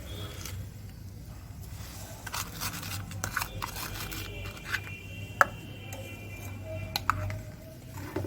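A spoon scraping and clicking against a cooking pan as ginger paste and jaggery are worked together, in irregular short strokes with a couple of sharper knocks, over a steady low hum.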